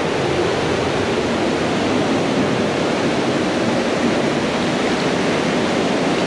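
Fast mountain river rushing over rapids at close range: a steady, even rush of whitewater.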